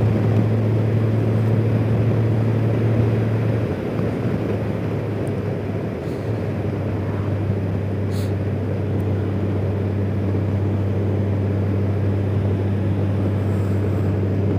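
2019 Honda Gold Wing Tour DCT's flat-six engine cruising at a steady drone, with wind and road rush around the rider. The engine note eases off briefly about four seconds in, then picks back up.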